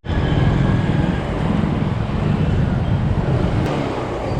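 Small motorcycle engine running steadily while riding in traffic, with wind buffeting the microphone.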